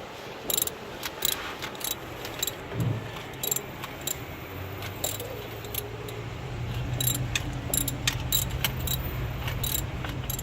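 Metal tools and parts clinking and rattling in an engine bay as the air-conditioning compressor is worked free, in many short irregular clicks. A steady low hum joins about three seconds in.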